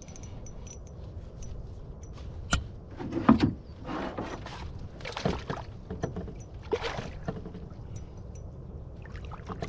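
Irregular knocks, clicks and rustling in a canoe as a freshly caught smallmouth bass is handled and unhooked; the loudest knocks come about two and a half and three and a half seconds in.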